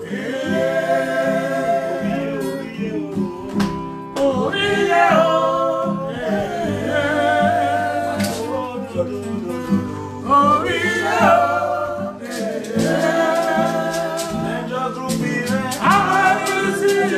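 A man singing to his own acoustic guitar, holding long notes that slide in pitch over the guitar's chords.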